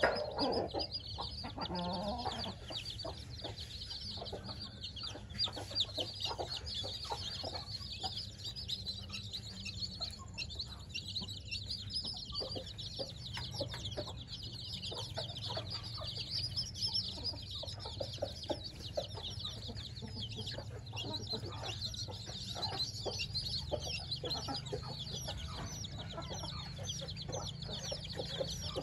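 A brood of week-old chicks peeping continuously: many short, high, overlapping peeps, with scattered light taps among them.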